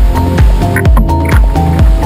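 Background music with a steady kick-drum beat, about two beats a second.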